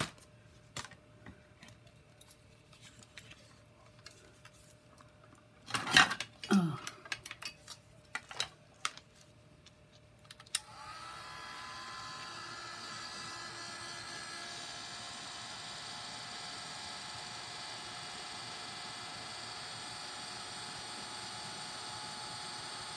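A few knocks and clicks of things being handled, the loudest with a short falling squeak, then about ten seconds in a small electric blower motor switches on and runs steadily with a whine.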